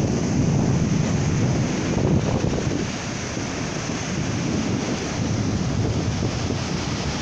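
Small waves breaking and washing up a sandy beach, with wind buffeting the microphone. The sound drops a little after about three seconds.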